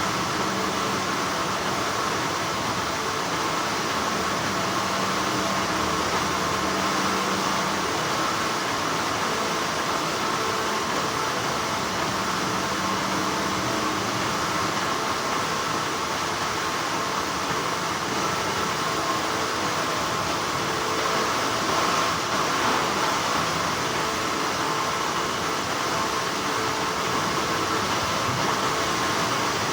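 Textile factory machinery running steadily: a dense, continuous hum and whir with several steady tones held through it.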